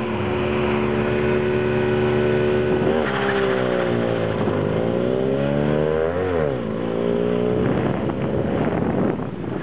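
Moskvich car engine revving hard. It is held high and steady at first; about three seconds in the pitch sags and climbs back, drops sharply near the six-second mark, then holds steady again.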